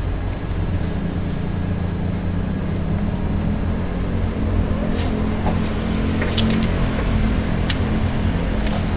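Steady low rumble of a vehicle running, with a few faint clicks about five to eight seconds in.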